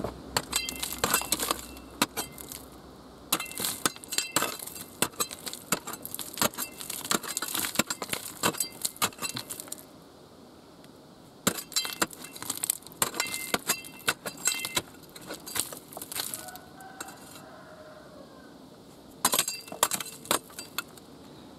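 Small metal hand tool chipping and scraping at a rocky tunnel wall: bursts of sharp clinks and scratching, stopping for a second or two several times.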